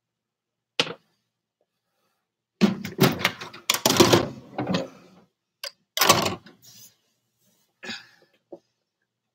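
Kitchen handling noise from cookware and utensils: a sharp knock about a second in, then a couple of seconds of dense clattering, another clatter a little later and a few small knocks near the end.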